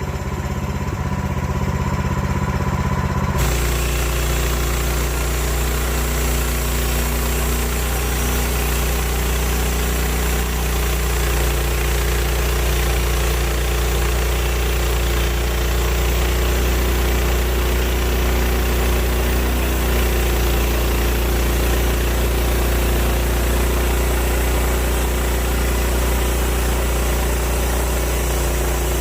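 Woodland Mills HM130 bandsaw mill's gas engine running. About three seconds in it steps up to a louder, fuller sound as the band blade takes over, then runs steadily while sawing a board off a red oak log.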